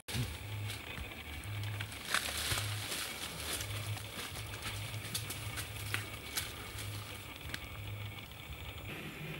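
Footsteps through dry leaves and undergrowth: dull thuds of steps about once or twice a second, with rustling brush and scattered snapping twigs.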